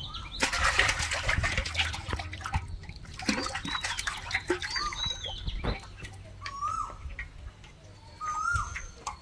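Fish thrashing and splashing in shallow water for the first few seconds, thinning to scattered splashes. Birds chirping in short rising-and-falling calls, clearer in the second half.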